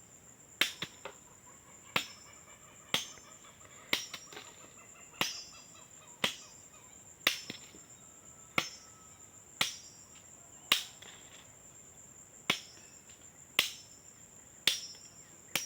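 Chopping blows from a blade cutting cassava stems into planting cuttings, about one sharp strike a second. A steady high insect trill runs underneath.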